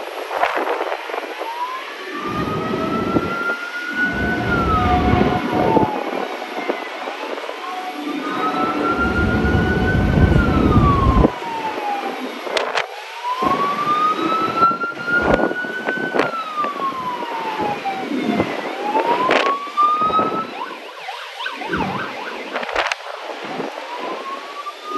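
Emergency-vehicle siren wailing, its pitch slowly rising and falling about every five and a half seconds. Gusts of wind rumble on the microphone, loudest in the first half, with a few sharp knocks.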